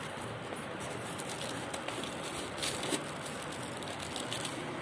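Plastic packaging bag crinkling and rustling in irregular crackles as it is handled and pulled out of a cardboard box, over a steady background hiss.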